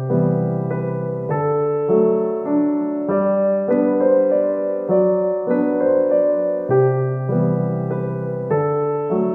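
Background piano music: a gentle melody of sustained notes and chords, changing about every half second.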